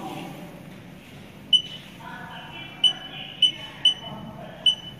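Touchscreen control panel of a TSP-CV1 tissue processor beeping at each key press. There are five short, high beeps at uneven intervals as a finger types on the on-screen keypad.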